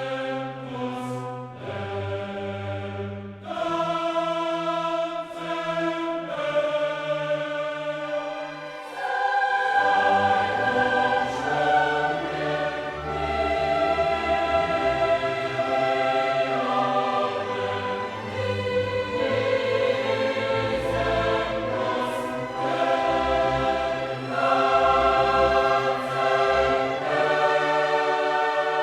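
Background music: choral and orchestral music with voices holding long notes over the orchestra.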